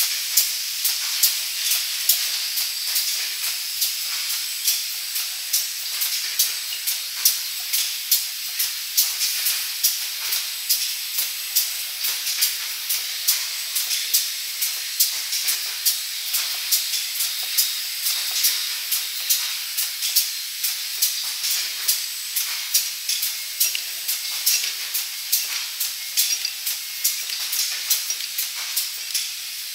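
Cream-jar labeling and conveyor machinery running: a steady high hiss with sharp mechanical clicks about three times a second.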